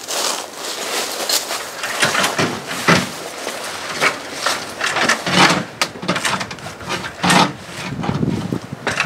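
Dry leaf litter crunching underfoot, with scattered irregular knocks and rustles as a stepladder is handled and climbed.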